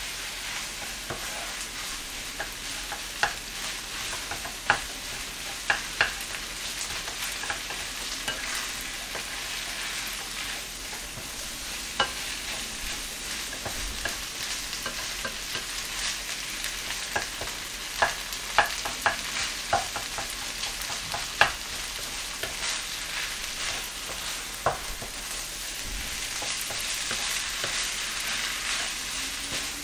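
Soy sauce egg fried rice sizzling in a metal frying pan as a wooden spatula stirs and scrapes it, with scattered sharp knocks of the spatula against the pan.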